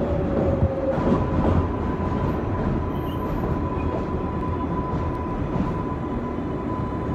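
R142A subway train running on the rails, heard from inside the car: a continuous rumble of wheels and track. A slowly falling whine fades out about a second in, and a steady, higher whine starts at that point and holds.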